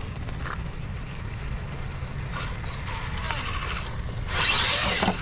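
Radio-controlled rock crawler's electric motor and geared drivetrain whirring and clicking as it crawls over rock, with a louder rushing noise for about a second near the end.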